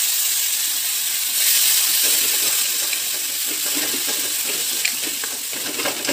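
Wet ground masala paste (fried onion, ginger, garlic and tomato blended in a mixer) sizzling in hot oil in a kadai: a loud, steady hiss that eases slowly toward the end, with a few light scrapes of a wooden spatula as it is stirred.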